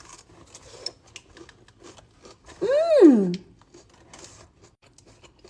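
A woman's wordless vocal exclamation about three seconds in, an 'ooh'-like sound whose pitch rises and then drops sharply. Around it, faint clicks and rustles of food packaging being handled.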